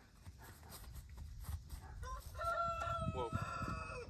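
A rooster crowing once, a call of about two seconds that starts halfway through, holds a steady pitch, then breaks and falls away at the end.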